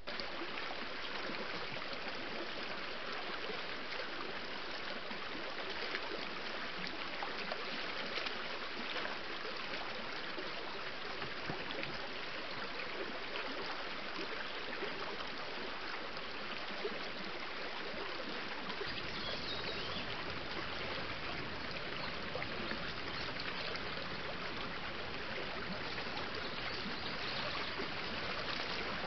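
Steady rush and trickle of a shallow woodland stream, heard through a trail camera's microphone.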